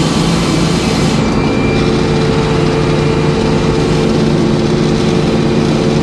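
Sawmill's power unit running steadily, a loud even engine hum. A hissing noise over it fades out about a second in.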